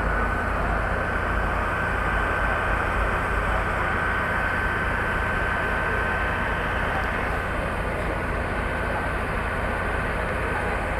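Fire trucks' engines running, a steady low rumble, with a faint steady high tone over it that fades near the end.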